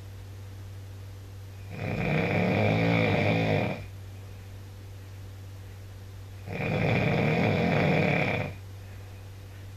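A man snoring in his sleep: two long snores of about two seconds each, roughly five seconds apart, with a steady low hum between them.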